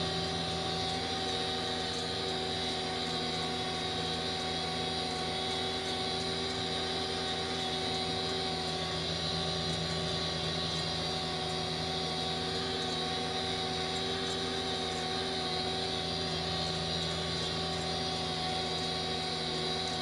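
Tractor engine running steadily under load, driving a hay tedder through cut grass.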